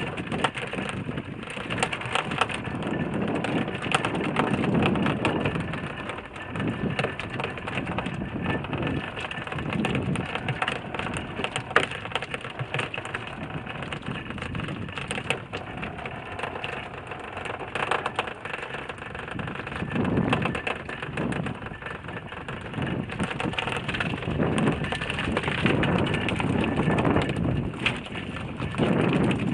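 Wind buffeting the microphone and water sloshing against a small wooden boat's hull, swelling and easing every few seconds, with many small knocks and rattles scattered through.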